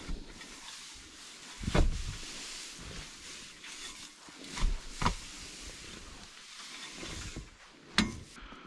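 Loose hay rustling as it is worked with a pitchfork, with a few sharp knocks, near two, five and eight seconds in.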